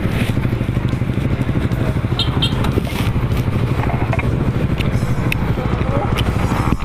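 Motorcycle engine running steadily while riding along, with wind and road noise over it.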